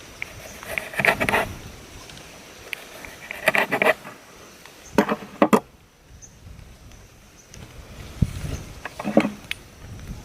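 Four short bursts of clattering and rustling, like objects being handled, about a second, three and a half, five and nine seconds in, over a faint steady high insect drone.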